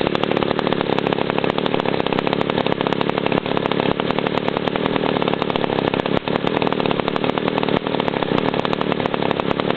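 Alpina 0-70 70cc two-stroke chainsaw engine running steadily at an even speed, with a fast, rapid firing beat.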